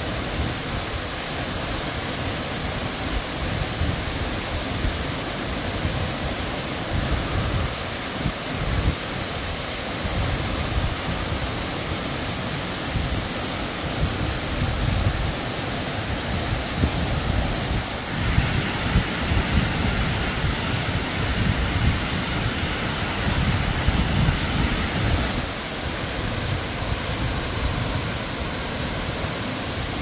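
A tall waterfall in flood, heavy muddy water pouring down and rushing on down the channel in a steady, loud rush of noise with an uneven low rumble underneath. The hiss grows brighter for several seconds past the middle.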